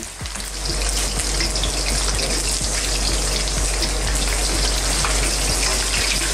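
Chicken wings deep-frying in hot oil in a wok: a steady, dense sizzle.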